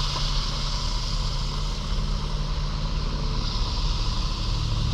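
Steady motor vehicle noise with a low engine hum, from a truck or car running close by.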